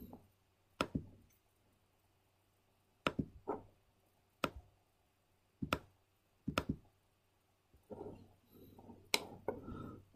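Sparse, sharp clicks of a computer mouse and keyboard while operating 3D modelling software, about eight isolated clicks spread out, with a few softer scuffing sounds near the end.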